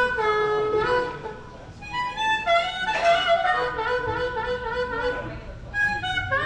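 A single melodic instrument played through the PA in short phrases during a band's sound check, with some notes bending between pitches.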